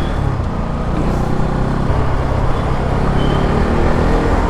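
Motorcycle ride in traffic: a Bajaj Pulsar NS200's single-cylinder engine running steadily under an even rush of road and wind noise.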